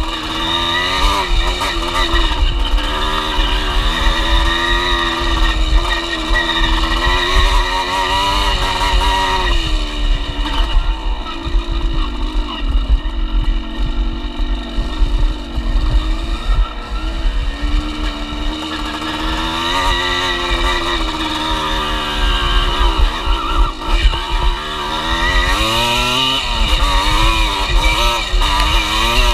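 Enduro dirt bike engine under way on a trail, its pitch rising and falling as the rider opens and closes the throttle, with wind buffeting the helmet-camera microphone.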